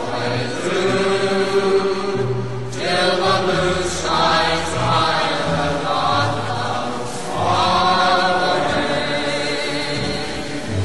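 Choral music: a choir singing long held notes in a chant-like style over a steady low tone, swelling in phrases.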